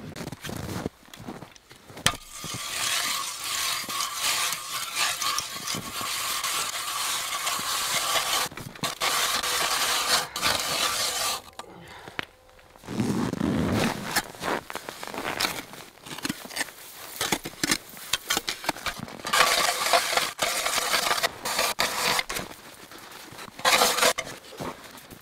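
Hand-cranked ice auger boring into lake ice: the blades scrape and grind steadily as they shave through the ice, starting about two seconds in. After a short break near the middle, it resumes in choppier, uneven turns.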